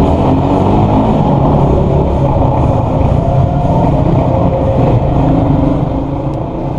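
Toro Rex TR250 motorcycle engine running under throttle as the bike is ridden, heard from the rider's position and echoing in an enclosed parking garage. It eases off slightly near the end.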